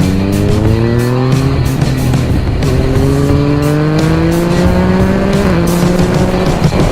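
Yamaha MT-09's inline three-cylinder engine through an Akrapovič full exhaust with the baffle removed, accelerating hard. The revs climb, break at a clutchless quickshifter upshift, then climb again for several seconds with another quick shift near the end.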